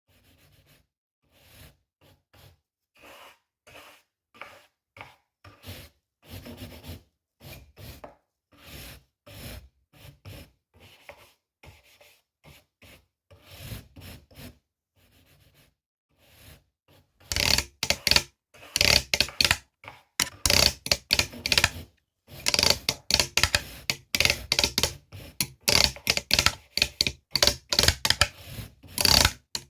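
Repeated rubbing or scraping strokes in a steady rhythm, quiet at first and much louder and denser from a little past halfway.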